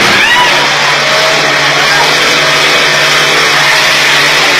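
Heavy cargo truck engine running steadily, a constant low drone under loud, even road and traffic noise.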